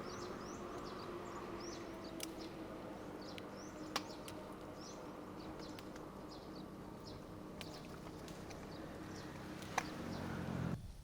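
Small birds chirping over and over, with a low steady hum underneath and a few sharp clicks; everything cuts off suddenly near the end.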